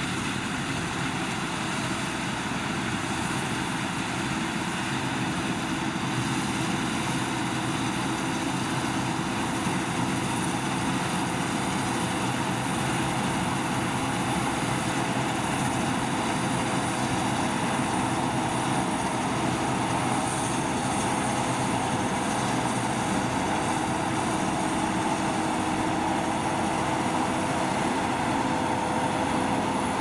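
Claas Lexion 650 combine harvester at work cutting and threshing winter barley: its engine and threshing machinery run in a steady drone, slightly louder in the second half.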